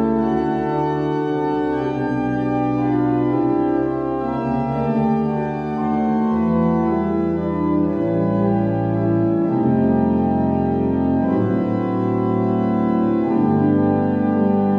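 Organ playing a prelude: sustained chords on the manuals over deep pedal bass notes that change every second or two.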